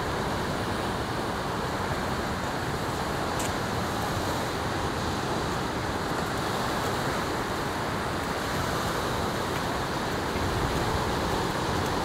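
Steady wash of ocean surf, with wind on the microphone.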